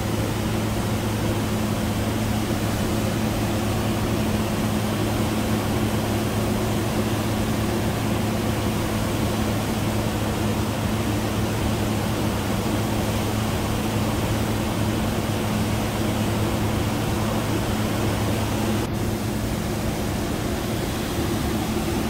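Water rushing steadily over a half-frozen waterfall, with a steady low hum underneath.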